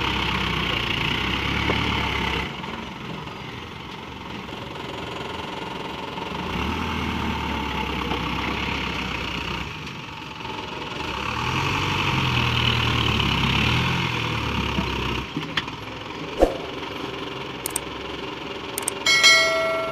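Loaded light dump truck's diesel engine running, revving up and easing back in several long swells. Near the end come a few sharp clicks and a short chime.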